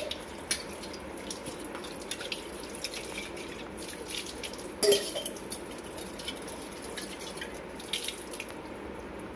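Tap water running onto and over a copper water pot (chombu) as it is rinsed by hand, a final rinse in plain water. Small metallic clinks and knocks come as the pot is turned, with a louder knock about five seconds in.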